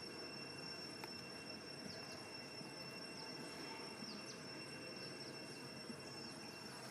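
Faint outdoor ambience: a steady, high-pitched insect drone, with a few short, high chirps that fall in pitch.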